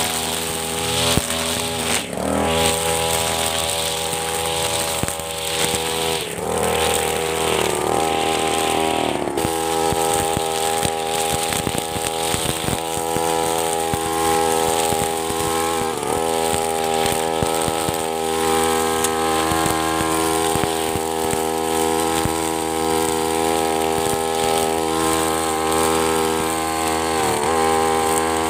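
Backpack brush cutter's small engine running at working speed while its metal blade cuts long grass. The engine pitch dips and recovers a few times in the first ten seconds, then holds steady.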